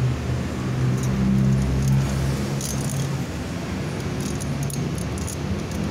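Steel saw chain links clinking and rattling as the chain is handled and seated on a 22-inch chainsaw bar, a few light clicks, over a steady low engine hum.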